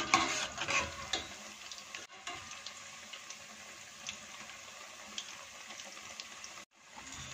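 Cauliflower pakoras in gram-flour batter deep-frying in hot oil at medium-low heat: a steady sizzle with scattered small crackles. In the first second a metal spatula knocks and scrapes against the steel pot as the fritters are turned, about four minutes into frying. The sound cuts out for a moment near the end.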